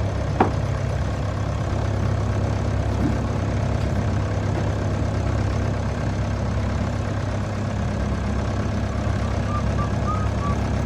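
A sailing ketch's auxiliary engine running steadily under way, a low even drone. A single sharp click about half a second in, and a few short high chirps near the end.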